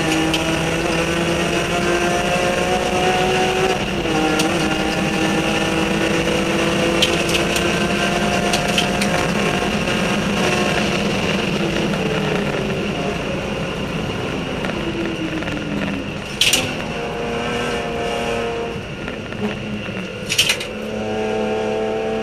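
BMW E46 M3 race car's engine running hard at high revs on a flying lap, heard from inside, with a short dip in pitch about four seconds in. Near the end the revs fall and waver as the car slows for a corner, and two sharp bangs come about four seconds apart.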